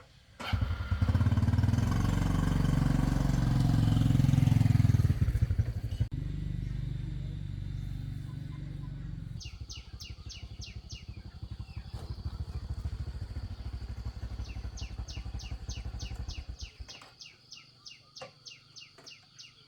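A small motorbike engine starts about half a second in, runs loudly for about five seconds, then runs on at a lower, steady level and cuts out near the end. A bird calls with quick repeated chirps, several a second, through the second half.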